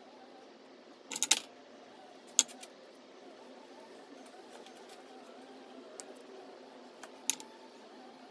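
Light, sharp metallic clicks and clinks of hands handling small wires and parts: a quick cluster about a second in, a single click a little later, and a couple more near the end, over a steady low hum.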